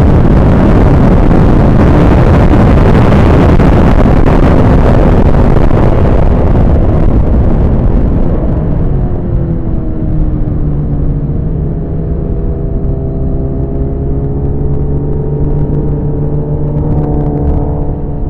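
Suzuki GSX-R1000 inline-four racing motorcycle engine running hard, buried in a loud rushing noise. About eight seconds in the rush fades and the level drops, leaving the engine note clearer as its pitch slides down and up.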